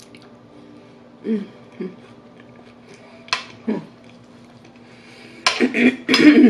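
Metal spoon scraping and scooping against a plate of Frito pie, loudest in a noisy stretch of scraping near the end, with a sharp click a little after three seconds in.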